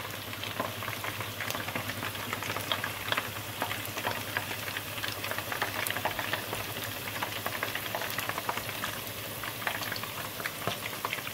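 Chicken wings deep-frying in hot oil in an open electric deep fryer: a steady, dense crackle and sizzle of bubbling oil, the wings well into the fry and crisping up.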